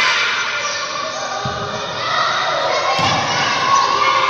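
Voices and shouts echoing in a large indoor sports hall, with a ball thumping on the floor twice, about one and a half and three seconds in.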